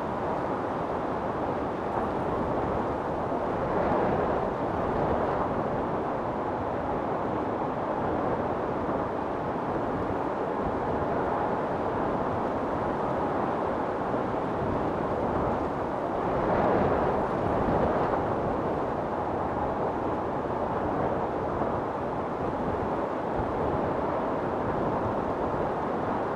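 Storm wind blowing steadily, with gusts swelling about four seconds in and again around sixteen to eighteen seconds in.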